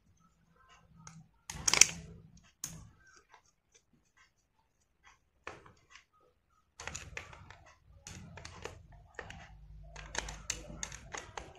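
A screwdriver turning and tightening small screws in the metal end plate of an air-pressure horn's electric motor, with the motor being handled: light clicks and metallic scraping. There are two sharper knocks about two seconds in, and the clicking grows denser from about seven seconds on.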